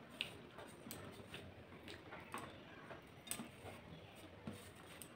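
Fingers mixing rice with dal on a stainless steel plate: faint, scattered light clicks of fingertips and rice against the steel, at irregular intervals.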